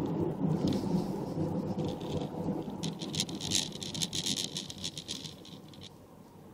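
Low rumble of road and engine noise heard inside a moving car, dying away about five seconds in as the car slows behind a braking car ahead. Irregular crackles and rustles run over it until then.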